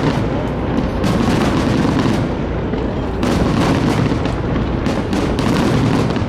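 Aerial fireworks bursting one after another: repeated booms over a continuous rumble and crackle.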